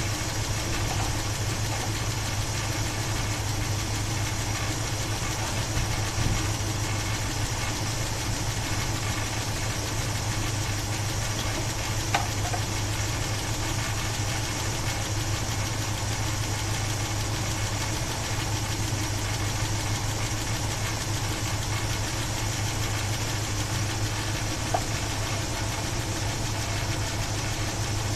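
Chevy 350 small-block V8 idling steadily, with a rattle from the top end that the owner thinks might be a stuck valve lifter. A few sharp ticks stand out about 6, 12 and 25 seconds in.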